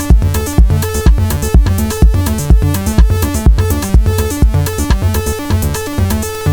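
Electronic jam: a Roland TR-8 drum machine plays a steady four-on-the-floor kick, about two beats a second, with hi-hats. Under and around it run a sequenced acid bassline from a Behringer TD-3-MO and synth lines from Arturia Minibrute 2s synthesizers.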